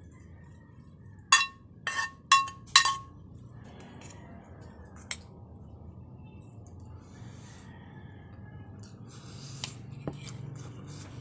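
Stainless steel bowl ringing from four sharp knocks in about a second and a half as food is scraped and knocked from a frying pan into it. A few faint clicks of a spoon in the bowl near the end.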